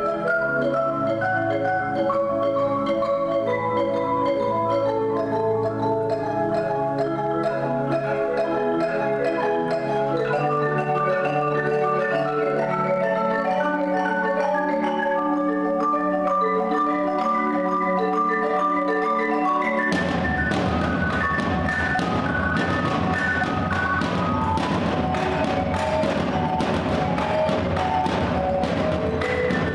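Two marimbas played with mallets by four players in fast, interlocking repeating patterns. About two-thirds of the way through, drums and other untuned percussion suddenly come in with dense, rapid strikes over the marimba lines.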